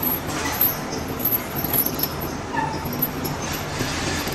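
Heavy steel lifting chains clinking and rattling as they are handled and looped around a machined steel roller, with a few sharp clinks and brief squeaks over a steady workshop background.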